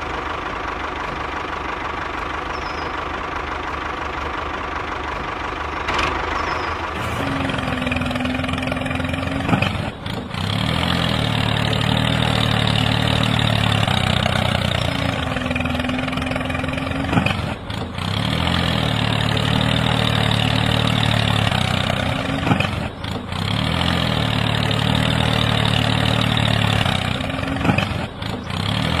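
A tractor engine running steadily. About seven seconds in it changes to a deeper, heavier note, which then comes round in the same cycle every five to seven seconds, each cycle broken by a brief dip.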